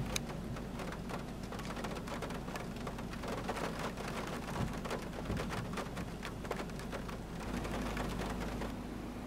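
Steady rain falling, with many single drops landing close by in an irregular stream of small ticks.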